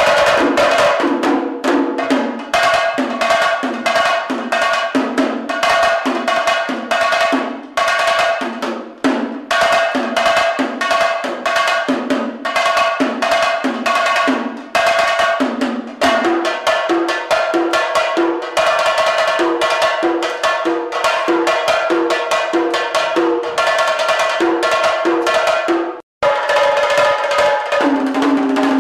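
Hand-drum trio playing a fast, dense rhythm on pairs of small clay drums, with sharp, ringing pitched strokes in quick runs. The sound cuts out for an instant near the end, then the drumming resumes.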